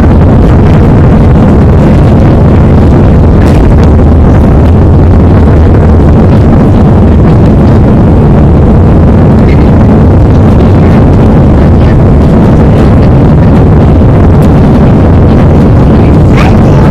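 An Airbus A318's jet engines running at takeoff power, heard from inside the passenger cabin as a steady, loud noise heavily distorted by an overdriven microphone.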